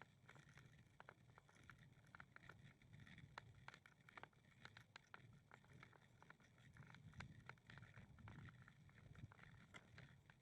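Near silence: a faint low rumble, as of wind on the microphone, with scattered light ticks.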